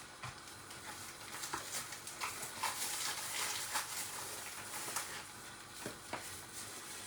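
Kitchen utensils being handled: scattered clicks, taps and scrapes, as of a spoon or knife against a pot or bowl, over a steady low hiss.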